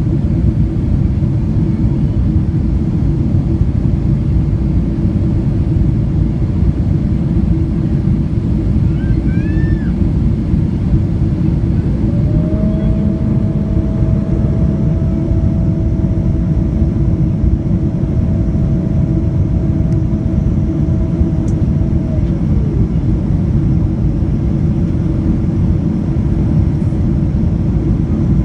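Boeing 777-200ER airliner cabin noise heard from a window seat: a loud, steady low rumble of the engines and airflow with a constant hum. About twelve seconds in, a higher steady whine starts, holds for about ten seconds, then slides down in pitch and stops.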